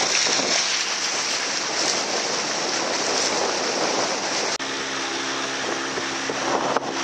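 Steady rushing of wind and water noise from a boat under way. About four and a half seconds in, after a brief break, a steady low engine hum from the boat's motor takes over.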